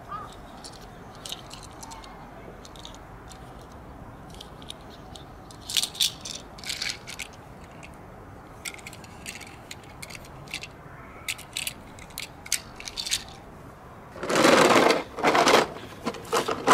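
Small die-cast toy cars clicking and rattling as they are handled and set down on a rough concrete ledge: scattered light clicks. Near the end come two louder scraping rustles, the first about a second long, as a plastic-bottle toy car is pushed onto the ledge.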